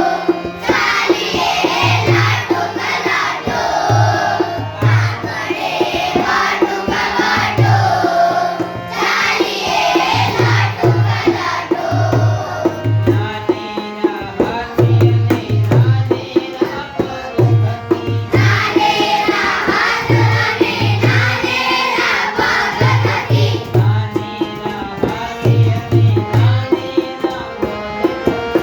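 Gujarati children's song: voices singing over tabla and a steady drum beat, with instrumental passages between the sung lines. Singing fills roughly the first third and returns around twenty seconds in.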